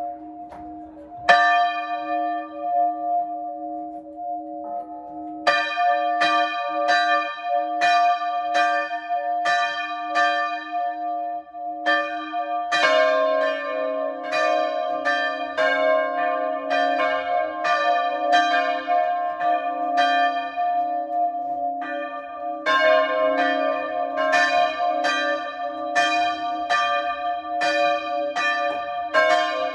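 A peal of four hand-rung church bells, the largest cast by De Poli in 1921 and the other three by Paolo Capanni in 1951. A single stroke comes about a second in, then repeated strokes from about five seconds in, growing denser from about thirteen seconds as a lower-pitched bell joins, each note ringing on between strokes.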